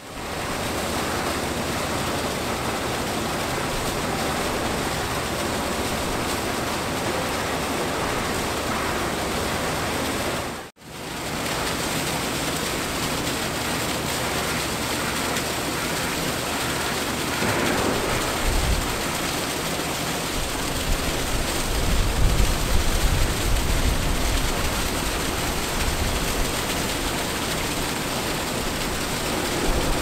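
Slurry desanding plant running: a steady rushing hiss like pouring water from the slurry on its vibrating screens. It drops out for an instant about a third of the way through, and a low rumble joins in past the middle.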